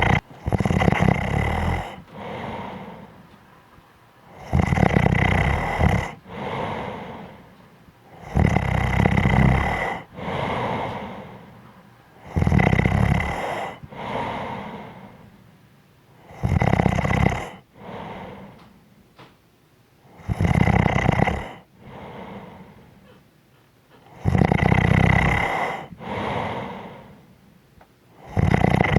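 A person snoring in a slow, regular rhythm, about one breath every four seconds. Each cycle is a loud, rattling snore followed by a quieter, fading breath.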